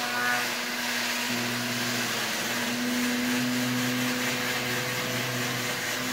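Small electric airplane motor turning a propeller on a model rail car, a steady whirring hum as it pulls a train of O-gauge cars around the track.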